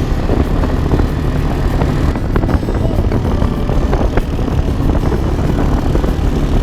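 An engine running steadily with a heavy, dense low rumble.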